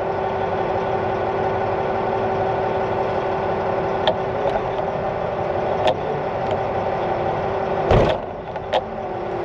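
Caterpillar 740 articulated dump truck's diesel engine idling steadily, heard from inside the cab, with a few short clicks and a louder thump about eight seconds in.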